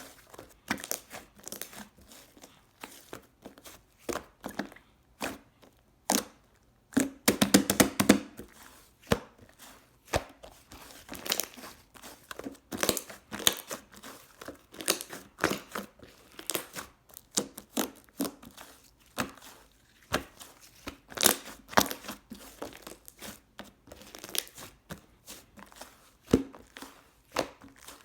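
Slime being squeezed, pressed and pulled by hand, giving irregular clicking and crackling pops, with a run of louder pops about seven seconds in.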